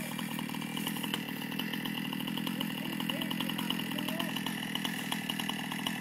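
Chainsaw engine running at a steady speed, without revving up or down.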